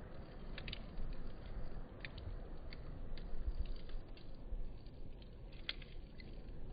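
Campfire crackling: scattered sharp pops and snaps of burning wood over a low, steady rumble of flame, with one louder pop near the end.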